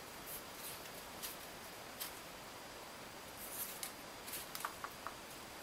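Faint rustles and small ticks of floral tape and thin wire being handled, as the tape is stretched and twisted around the wire, more frequent in the second half.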